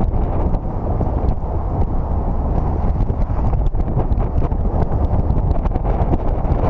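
Wind buffeting an exterior-mounted camera on a moving car, with a low road rumble and many irregular small clicks and knocks.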